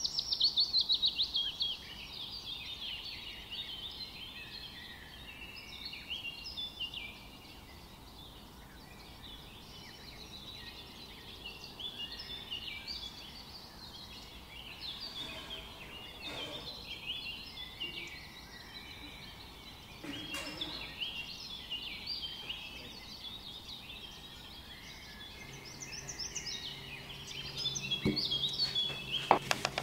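Songbirds chirping and singing, many quick high calls overlapping throughout. Near the end come a few sharp knocks on a wooden cutting board.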